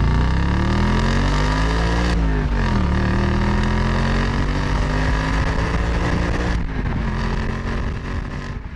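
Car engine accelerating. Its pitch climbs, then drops sharply about two seconds in, as at a gear change, and it then runs at a fairly steady pitch.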